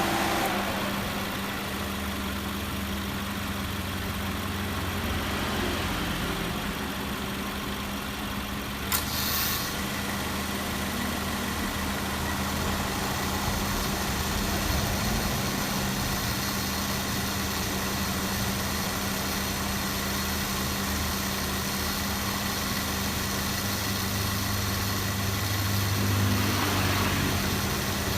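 Subaru Forester idling with its air-conditioning compressor cycling: about nine seconds in a sharp click as the compressor engages, after which an added running noise stays over the engine's steady hum. This is the abnormal compressor noise at start-up and while running, on a system that cycles the compressor only about twice a minute and cools poorly.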